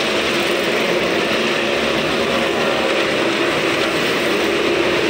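Several motorcycles running hard together as they circle the wall of a wooden wall-of-death drum. Their engines blend into one loud, steady drone with no gaps.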